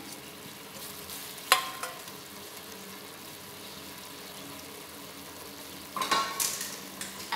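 Fenugreek seeds, onion and spices cooking in oil with a little water in an aluminium pot: a steady sizzle and bubbling as the seeds soften. There is a sharp tap about a second and a half in and a clatter near the end.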